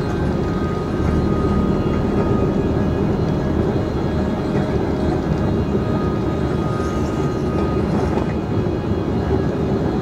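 Electric train running at speed along the track: a steady low rumble with a few faint high tones over it.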